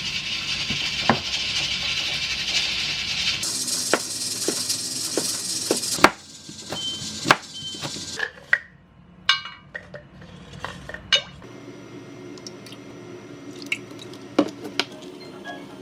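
Dishes and utensils clinking and knocking in a kitchen. A steady hiss runs under the first six seconds and cuts off suddenly, and a few scattered clinks follow.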